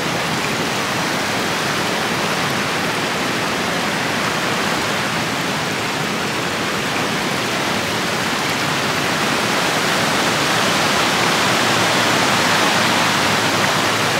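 Steady, even rush of running water, like a stream or small waterfall, with no change in level.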